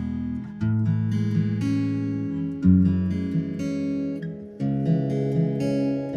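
Background music: an acoustic guitar strumming chords, with a new chord struck about every two seconds.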